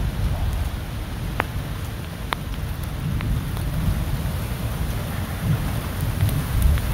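Thunderstorm: a low rumble of thunder over a steady hiss of rain, with a few sharp ticks.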